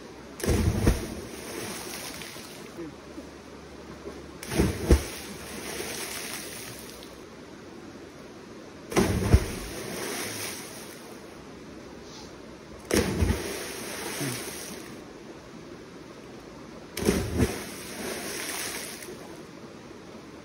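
People jumping one after another into a shallow river pool. There are five big splashes about four seconds apart, with the steady rush of the river between them.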